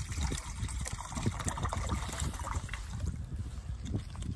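Water bubbling in a small pan over a gas camp stove, with a low rumble of wind on the microphone throughout; the bubbling fades out about two and a half seconds in.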